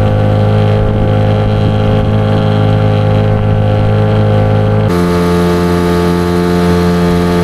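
Music of loud, sustained synth-like chords with no beat, moving to a new chord about five seconds in.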